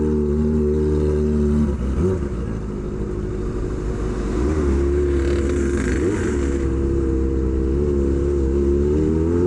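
Kawasaki Ninja ZX-25R's 250 cc inline-four engine through an SC Project aftermarket exhaust, running steadily while riding. It drops off about two seconds in, then pulls again, rising in pitch near the end as it accelerates.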